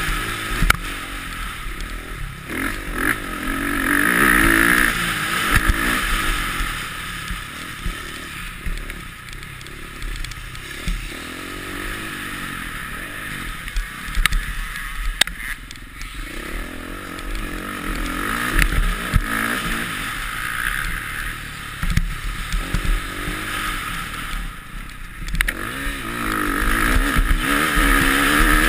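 Motocross bike engine heard from onboard, revving hard with rising and falling pitch as the rider accelerates along the dirt track, easing off through the middle and pulling hard again near the end. Scattered sharp clicks and knocks sound over the engine.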